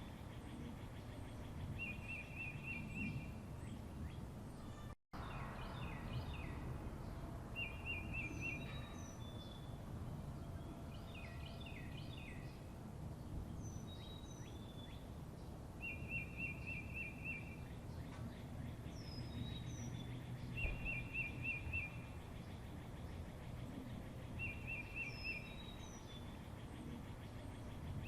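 Several birds singing: one repeats a short rapid trill, about a second long, every few seconds, while others give brief high chirps that slide downward. Steady low background noise runs underneath, and the sound cuts out for an instant about five seconds in.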